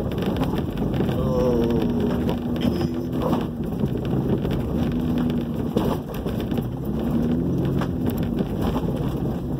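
Truck engine running under light load as it drives a dirt trail, with tyre and body noise heard from inside the cab and a few short knocks over bumps.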